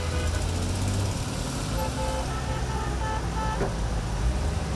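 Classic cars driving slowly past, their engines giving a steady low running sound, with several short horn toots about two to three seconds in.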